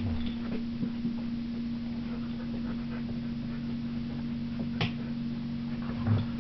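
Steady low hum, with one short sharp click about five seconds in.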